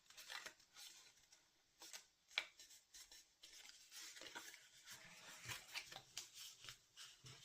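Faint rustling and light clicks of cardstock being worked by hand, with one sharper tick about two and a half seconds in.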